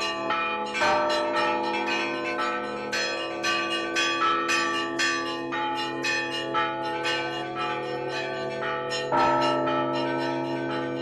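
Several church bells rung together: smaller bells struck quickly, several strikes a second, over the steady hum of a large bell, which is struck again about a second in and near the end.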